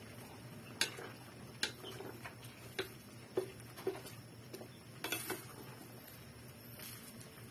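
Wooden spatula knocking and scraping against a stainless steel pot while vegetables are stirred and tossed: irregular sharp clicks, about seven, at uneven intervals.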